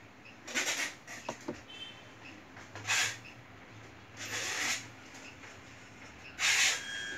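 Handling noise from a hand working the rotary control knob of an interferential therapy unit: four short scuffing rushes, a couple of small clicks, and faint short electronic beeps.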